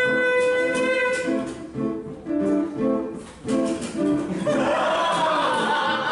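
Acoustic guitar played live, plucking a run of short repeated notes. It opens on a long held note and ends under a noisier, wavering sound.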